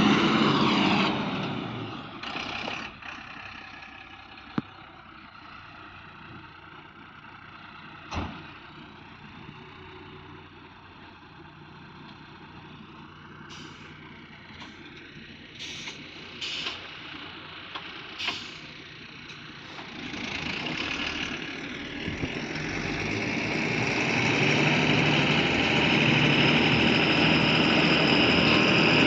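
Diesel engine of a tipper dump truck unloading: running quietly with a few sharp knocks and clangs, then from about two-thirds of the way through it speeds up and runs steadily and louder.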